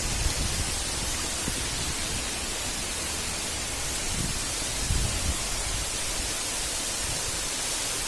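Waterfall rushing: a steady, even roar of falling water. Low rumbles on the microphone come near the start and again about five seconds in.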